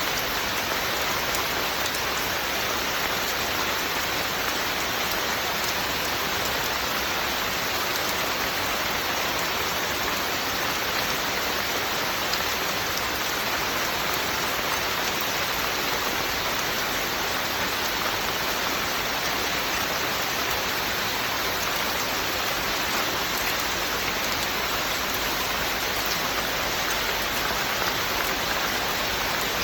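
Steady, even rain falling and pattering on a surface, without pause or change.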